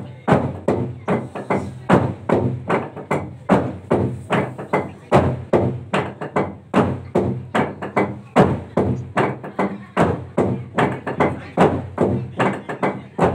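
A long hollowed-out log drum beaten in unison by many players with wooden beaters, in a fast, even rhythm of about three strokes a second. Each stroke is a hard wooden knock with a low ringing note.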